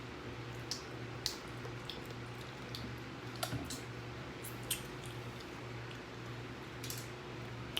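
Eating at a table: a handful of short, sharp clicks and smacks from chewing and handling food, over a steady low hum.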